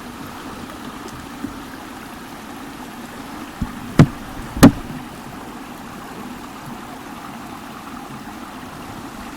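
Steady splashing of a small waterfall pouring into the water, with two sharp knocks about four seconds in, roughly half a second apart.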